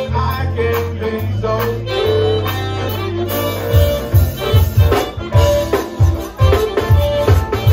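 Live zydeco band playing an instrumental passage, with accordion over electric bass, drums and guitar. The bass holds long notes at first, then a little past halfway the bass and drums break into a steady driving beat.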